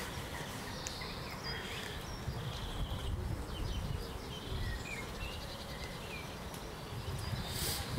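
Outdoor ambience: a steady low rumble with scattered short, high, rising bird chirps.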